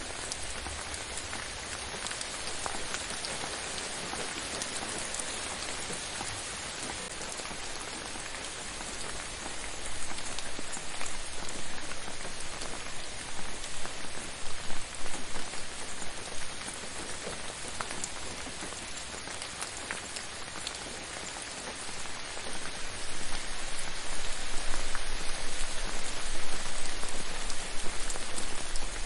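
Gentle rain falling, an even patter of many drops on a surface. It swells louder about a third of the way in, eases back, then grows louder again with sharper nearby drop hits through the last few seconds.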